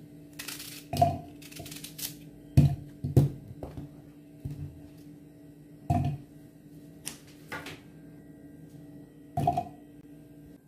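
Vegetable pieces being dropped into a clear plastic food-chopper bowl on a countertop: about five sudden knocks and thuds, with brief rustling between them, over a steady low hum.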